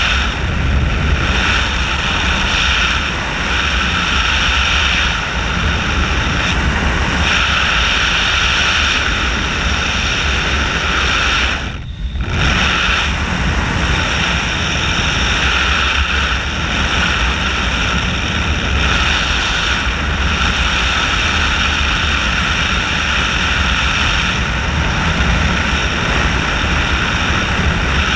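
Steady loud rush of air and drone in the cockpit of a flying aerobatic glider, with a constant hum running through it; it drops away briefly about halfway through.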